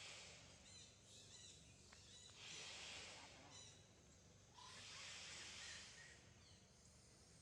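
Faint outdoor ambience: three swells of high hiss, with a few faint short chirps between them.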